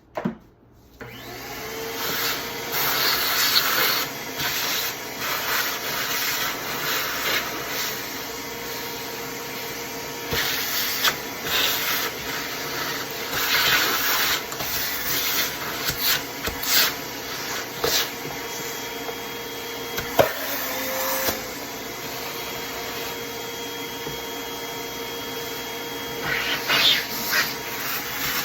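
DeWalt shop vacuum switched on about a second in and running steadily, sucking up sawdust and gunk scraped loose from a chainsaw, with uneven rattling hisses as debris is drawn into the nozzle.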